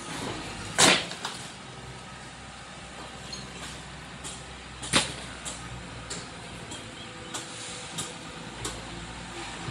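Construction-site ambience: a steady low hum with scattered sharp knocks, a loud one about a second in and another about five seconds in.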